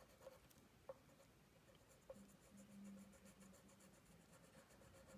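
Faint scratching of a red wax crayon rubbed back and forth on paper as a drawing is coloured in, with a few small ticks.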